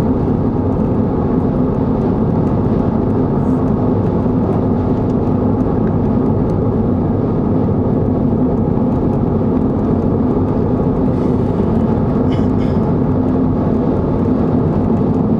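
Steady road and engine noise inside a car cabin at highway speed: an even, low rumble with a constant hum.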